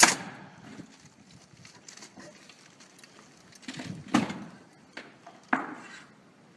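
Three sharp clacks of hard objects being handled, one at the start, one about four seconds in and one about a second later, with light rustling between them.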